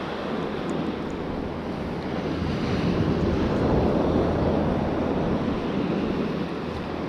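Sea waves washing on the shore, with wind rumbling on the microphone; the wash swells a little in the middle.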